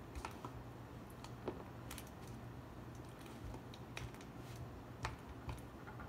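Metal loop tool scraping and gouging leather-hard clay to hollow out a sculpture: irregular light scratches and clicks, a few a second, as clay scraps come away. A low steady hum sits underneath.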